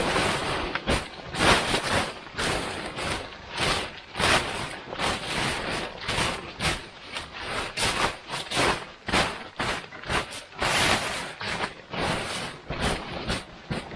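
Irregular crunching and rustling of a tent being pitched in snow: tent fabric handled and snow trodden underfoot, in uneven bursts about once or twice a second.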